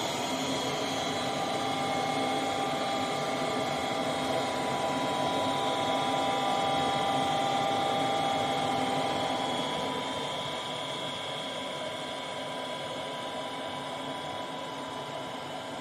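Goodman gas furnace's draft inducer (exhaust) fan motor settling at full speed right at the start, then running with a steady whine. This is the pre-purge at the start of the furnace's ignition sequence, before the igniter comes on.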